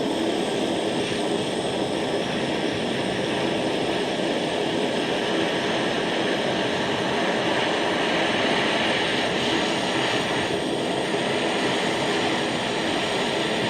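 Soldering torch flame burning with a steady hiss, held on a ring's solder joints to heat them until the solder flows.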